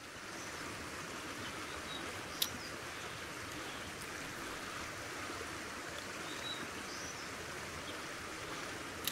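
Steady rush of a small creek flowing high and fast after heavy rain, with a single sharp click about two and a half seconds in.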